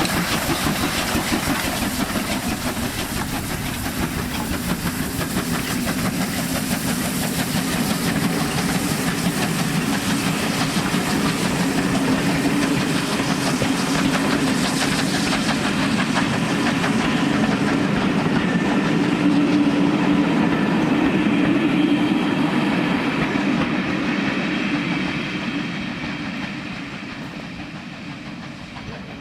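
A train running along the line, wheels clattering over the rail joints. It grows louder to a peak about two-thirds of the way through, then fades away near the end as it goes by.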